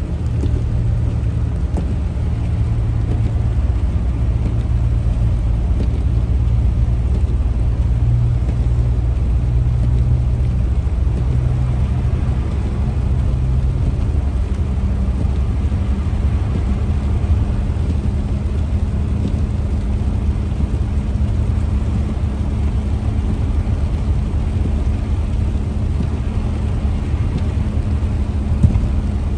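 Steady low engine and road rumble inside a moving car, with the engine hum shifting slightly in pitch about halfway through. A single short knock near the end.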